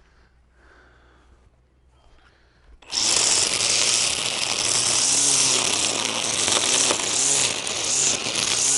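A Milwaukee M18 Fuel cordless string trimmer starts suddenly about three seconds in and runs loudly and steadily, its nylon line whirring and hissing as it cuts tall grass.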